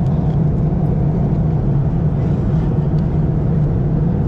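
Steady drone of an Airbus A330-300 airliner cabin in cruise, engine and airflow noise with a strong low hum. A few faint clicks come from items being handled on the tray table.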